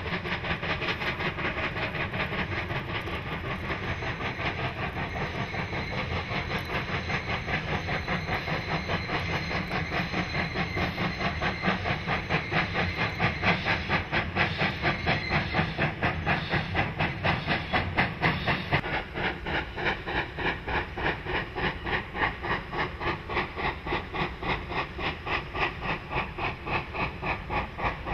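GMAM Garratt articulated steam locomotive hauling a train, its exhaust chuffing in rapid, regular beats with steam hiss. The beats are loudest around the middle.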